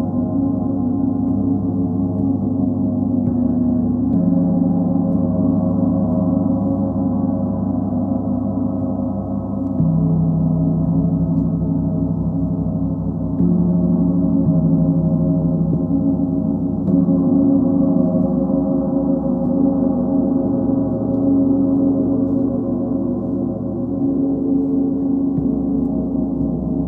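Large planetary gongs (Sun, Full Moon and Earth gongs) kept ringing with a mallet in a continuous, deep wash of overlapping tones. The low notes shift every few seconds as new strokes come in, without any single loud crash.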